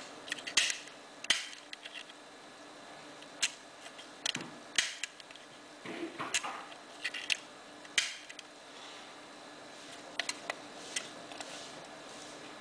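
Belomo Chaika-II half-frame film camera being handled: a string of sharp, irregular mechanical clicks and short scrapes from its metal body and controls, with a quieter gap a little after the middle and a few small clicks after it.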